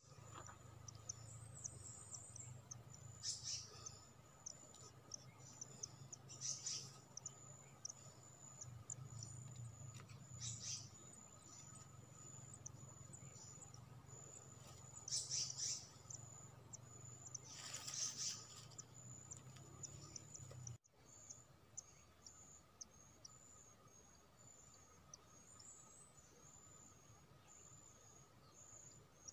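Faint forest ambience: a steady high insect drone with fine pulsing, and about five short bird chirps spread through it. A low hum underneath stops abruptly about two-thirds of the way through.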